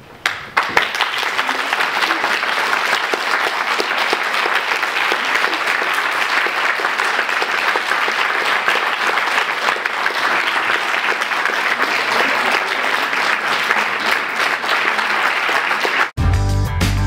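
Audience applauding, the clapping starting about half a second in and holding steady, then cut off abruptly near the end, where music with a strong bass beat takes over.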